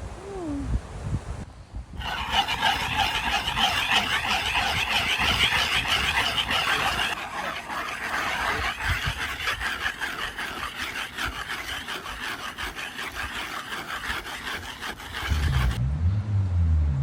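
A tuna can being rubbed hard against a rough surface, a steady gritty scraping of quick back-and-forth strokes. Near the end the scraping stops and a loud low droning starts.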